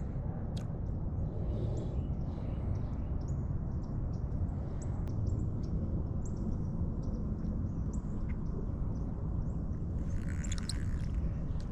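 Outdoor ambience while fishing: a steady low rumble with scattered short bird chirps, which cluster briefly near the end.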